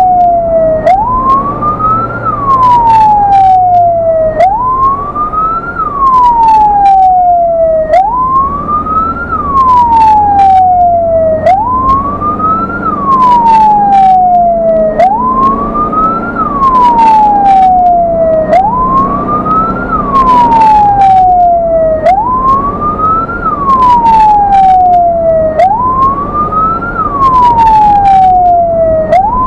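Ambulance wail siren cycling about every three and a half seconds, each cycle a quick rise in pitch followed by a long falling sweep, over the ambulance's engine running, with scattered sharp clicks.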